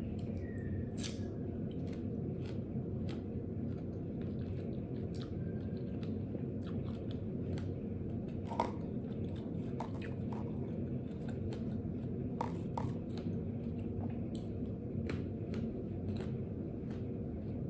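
Close-up chewing of mango with fried chilies, with scattered short crisp crunches and clicks, the sharpest about halfway through, over a steady low background hum.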